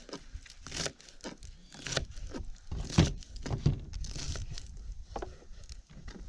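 Irregular clicks, knocks and crinkling from food prep at a work table.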